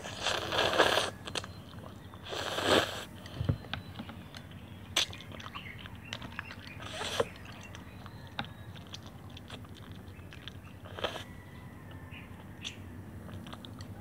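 Noodles slurped from chopsticks, two loud sucking slurps in the first three seconds. Chewing follows, with scattered small clicks and another short slurp about eleven seconds in.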